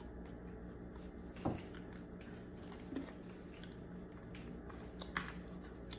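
A person chewing a mouthful of coffee beans, with a few crisp crunches over a steady low hum.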